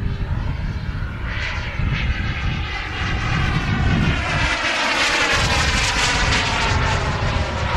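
A jet aircraft climbing away after take-off: a steady rushing engine noise with a whine that falls slowly in pitch as it recedes.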